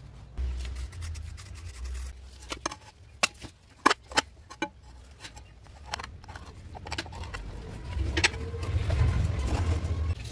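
Sharp knocks and taps, about five in two seconds, from setting a ceramic floor tile into a bed of cement mortar, over a low rumble.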